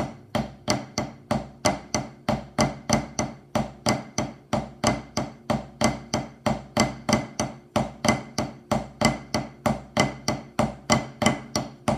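Drumsticks playing the Swiss Army triplet rudiment at a slow, even pace, about four strokes a second, with a flam starting each triplet group.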